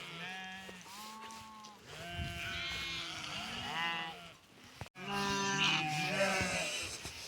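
A flock of sheep bleating, many calls overlapping one another. The sound breaks off sharply just before five seconds in, and the bleating is louder after the break.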